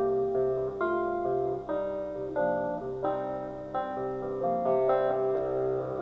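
Recorded music playing from a CD on a hi-fi system: an instrumental passage of plucked guitar notes with some piano, no voice.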